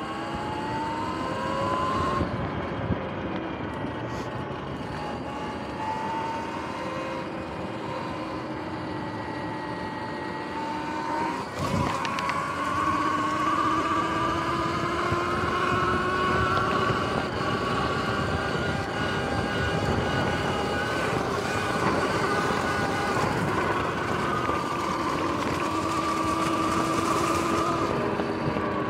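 Sur-Ron X electric dirt bike's motor and freshly replaced chain and sprockets whining while riding. The whine rises in pitch as the bike speeds up at the start, and a sharp knock comes about twelve seconds in, after which the whine is louder and steady, easing down a little near the end.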